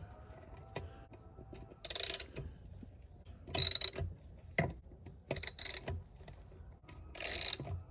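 Ratchet wrench clicking in short bursts, about five strokes spread over several seconds, as a 10 mm bolt is backed out of the transmission case.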